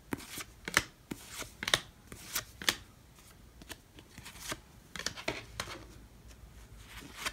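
A stack of Topps baseball cards being flipped through by hand, each card slid off the front of the stack with a short papery flick. The flicks come quickly over the first three seconds, then a few more about five seconds in.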